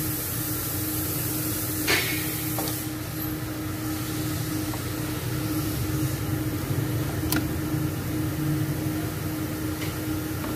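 Steady mechanical hum with a held tone, broken by a few sharp clicks while a diesel engine's crankshaft is turned by hand at the pulley.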